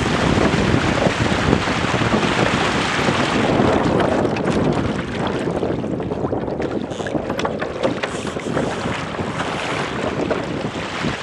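Wind buffeting the microphone over water rushing and splashing along the hull of a Weta trimaran sailing at speed. The noise eases a little about halfway through, leaving scattered sharp ticks of spray.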